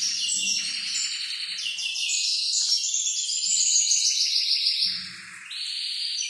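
A small songbird singing continuously in fast, high trills and chirps, loudest in the middle.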